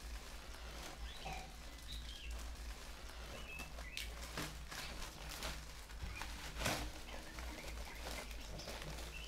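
Clicks and rustles of plastic toys being handled, several sharp ones in the middle and the loudest about two-thirds of the way in, over faint high chirping in the background and a steady low hum.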